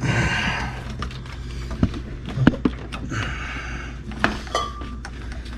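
Metal intercooler piping and rubber couplers being handled and pushed into place, giving scattered clinks and knocks with short scraping rubs near the start and about three seconds in. A steady low hum runs underneath.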